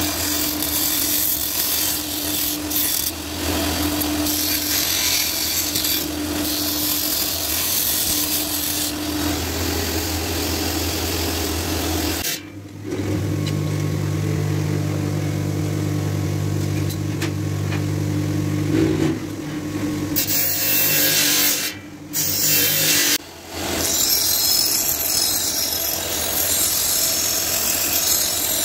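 Belt grinder running, its abrasive belt grinding a steel knife blank: a steady motor hum under a harsh grinding hiss. The sound cuts off briefly about halfway through and twice more later on.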